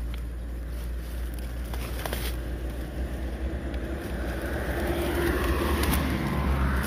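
Wind rumbling on the microphone with road traffic, as a vehicle passes and grows louder toward the end.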